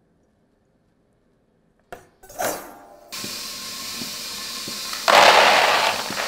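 Silent for about two seconds, then caramel-coated nuts rattling and clinking against a stainless steel bowl and dragée pan, turning louder about five seconds in as they are poured out onto a plastic tray.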